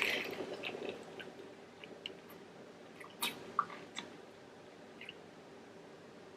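Close-up chewing of fried food, with soft wet mouth sounds and a few sharp clicks, the loudest a little past halfway.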